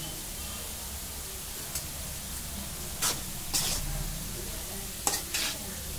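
Greens and toor dal frying in a metal kadai over a steady sizzle, with several short scrapes of a metal spatula against the pan as the mix is stirred.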